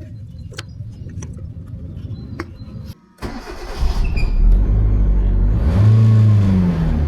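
Hyundai Getz engine running, with a few light clicks at first. After a brief break about three seconds in, it runs louder and is revved once near the end, the pitch rising and falling. It runs on freshly replaced spark plugs that cured its misfire.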